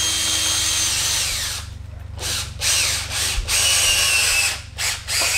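Cordless power driver spinning the threaded rods of a coil-spring compressor, tightening it to compress the strut's coil spring. It runs steadily for about a second and a half, then in about five short trigger bursts.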